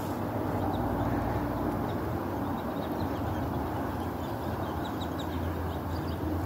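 Steady wind rumbling on a phone's microphone outdoors, with faint short high chirps scattered through.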